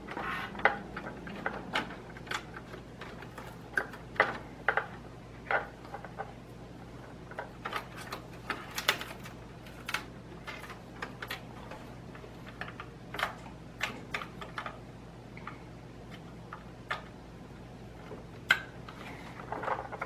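Computer power and data cables being handled and plugged in by hand: irregular light clicks, taps and rustles of plastic connectors and cable sheathing against the metal case, over a faint steady low hum.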